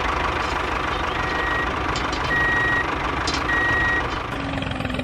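Vehicle engine running steadily with a reversing alarm beeping three times, each beep about half a second long.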